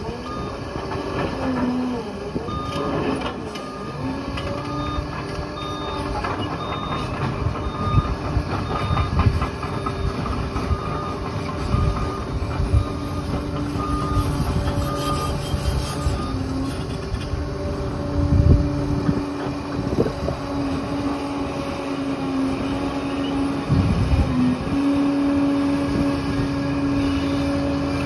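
Liebherr 746 crawler dozer's diesel engine running under load, its pitch dipping and recovering as it works, with clanks from the tracks and blade. A reversing alarm beeps steadily about once a second through the first half, then stops.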